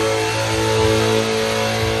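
Dodge Challenger Hellcat's supercharged V8 held at steady revs through a burnout, rear tyres spinning and smoking.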